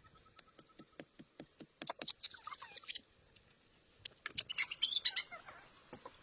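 High-pitched animal squeaks and chirps in two short bouts, the second one louder, with a run of light clicks before them.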